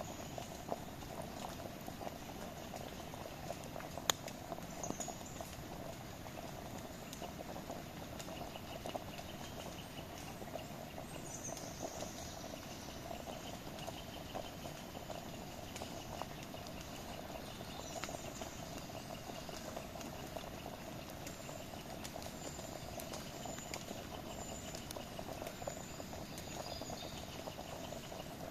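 Campfire burning, with a steady hiss of flames and scattered crackles and pops from the burning wood, one sharper pop about four seconds in. Faint high chirps sound in the background.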